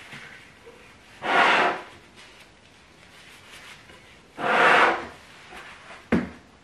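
A china plate scraping across a wooden butcher-block table twice, each scrape lasting under a second, about a second in and again about four seconds in, then a short sharp knock near the end.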